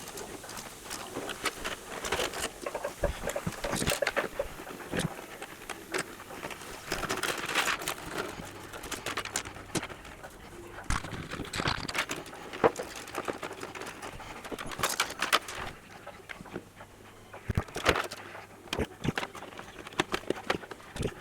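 Irregular clicks, taps and rustling as hands handle and route cables and parts inside a PC case.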